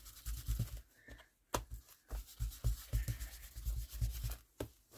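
Big ink blending brush rubbed over paper in quick repeated strokes, about three a second, each stroke landing as a dull knock on the work surface. A pause a little after one second ends with one sharp click.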